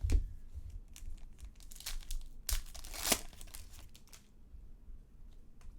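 Trading-card packaging crinkling and tearing as it is handled and opened. The loudest stretch of tearing comes about two and a half to three and a half seconds in.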